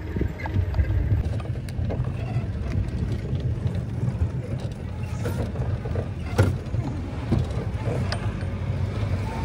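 Open Maruti Gypsy safari jeep driving over a rough dirt track: a steady low engine and road rumble, with the body and fittings rattling and knocking now and then over bumps.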